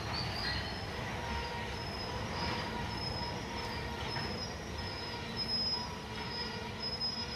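Freight train cars rolling past, a steady low rumble of steel wheels on rail with thin, high wheel squeal coming and going on top.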